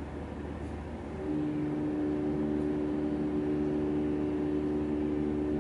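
A steady machine hum, made of a few steady tones, comes on about a second in and keeps running.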